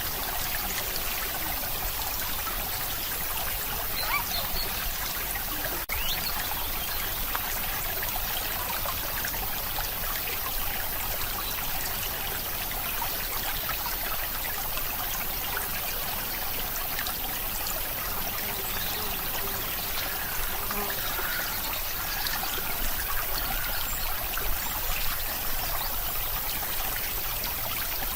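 Steady trickling, stream-like running-water noise, with a short break about six seconds in.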